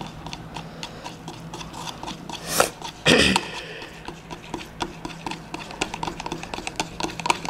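Stirring rod ticking and scraping against the sides of a plastic cup while glue, water and food colouring are mixed, in quick irregular clicks, with a couple of louder brief noises about three seconds in.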